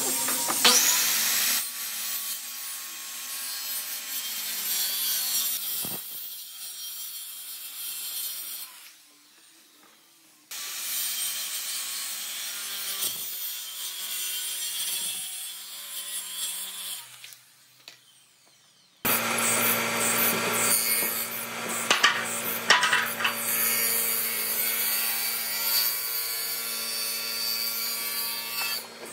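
A tool working wood, a dry rasping and rubbing noise, like sawing or sanding, in several stretches. It breaks off abruptly twice into short near-quiet gaps. In the last third a low steady hum runs under it.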